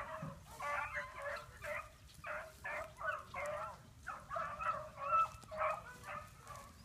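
A small pack of 13-inch male beagles baying, a quick run of short overlapping calls, as hounds give voice while running a rabbit's track.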